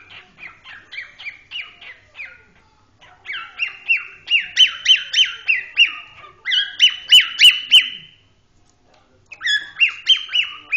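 Cockatiel chirping in quick runs of short, repeated notes, about three a second. A soft run comes first, then two louder runs with a short pause between them.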